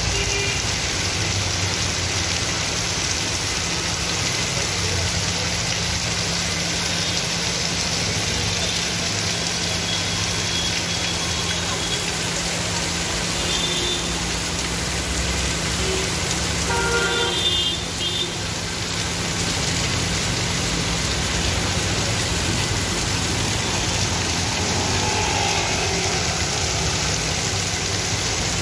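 Heavy rain pouring steadily onto a wet street, with the engines of passing auto-rickshaws and scooters running underneath. A short pitched sound cuts through a little past halfway.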